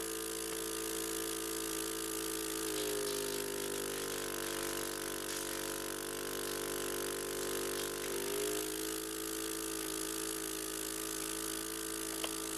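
Electric airway suction machine running steadily, its motor pitch changing for a few seconds in the middle.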